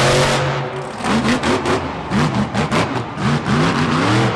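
Monster truck engine revving, its pitch climbing and dropping again and again.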